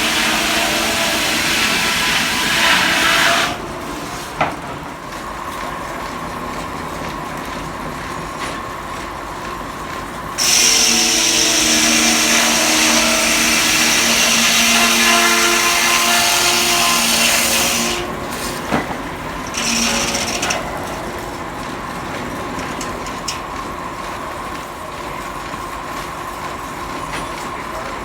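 Vintage steam-powered sawmill: the saw blade cuts through a log three times, a first cut ending about three seconds in, a long cut in the middle, and a short one later. Each cut brings a loud, harsh whine. Between cuts the blade keeps spinning with a steadier, quieter hum.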